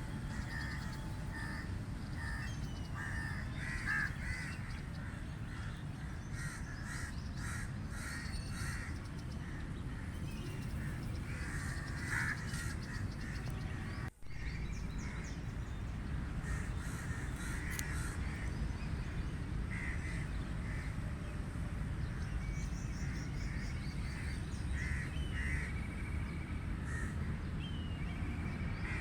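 Crows cawing over and over, many short calls following one another, over a steady low background rumble. The sound drops out for an instant about halfway through.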